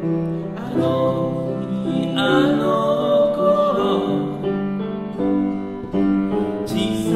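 Piano playing the introduction of a song, with sustained chords that change about every second.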